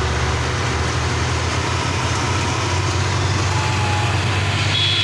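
Belarus 510 tractors' diesel engines running hard under heavy load, pulling a stuck drilling-rig truck: a loud, steady low rumble.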